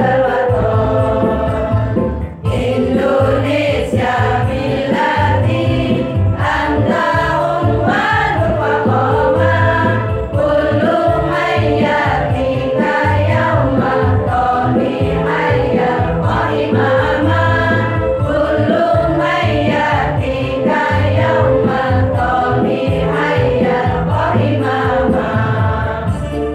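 Women's choir singing together over instrumental accompaniment with a steady bass line, amplified through a PA system.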